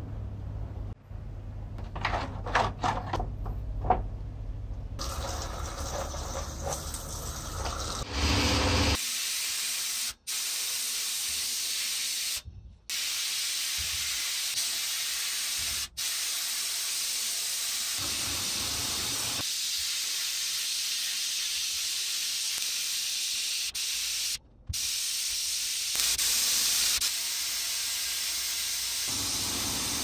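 Abrasive blast gun in a sandblasting cabinet spraying compressed air and grit onto small metal typewriter parts: a loud, steady hiss that cuts out briefly a few times as the trigger is released. A few knocks and clinks come in the first seconds, before the steady blasting starts.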